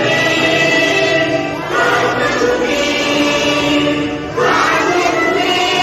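A large group of schoolchildren singing a prayer song together in unison, in long held notes, with two short breaks between phrases.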